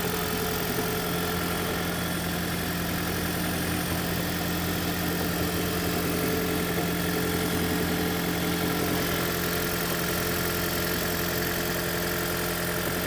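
2010 Toyota Prius's 1.8-litre four-cylinder petrol engine running steadily at idle, then cutting off abruptly.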